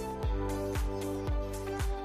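Background music with a steady low beat about twice a second under held chords.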